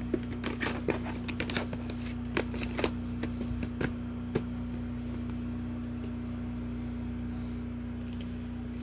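Hard plastic clicks and clacks of a VHS tape and its plastic clamshell case being handled and snapped shut, a quick run of them over the first four seconds, over a steady low hum.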